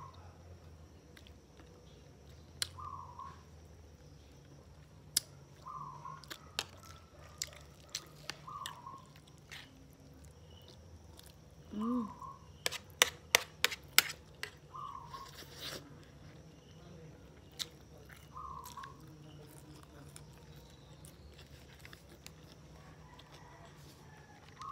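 Eating sounds from a meal of rice, dried fish and fish soup: chewing and small clicks. About halfway through comes a slurp of soup from a spoon, then a quick run of sharp clinks of the spoon against the plate, the loudest sounds here. Throughout, a bird repeats a short call about every three seconds.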